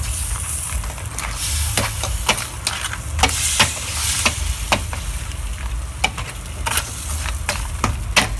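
Crabs sizzling in chili garlic sauce in a stainless steel wok as a spatula stirs them, with irregular clacks and scrapes of the spatula against the pan.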